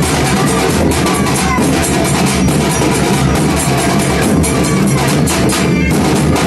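Loud music driven by steady, fast drumming.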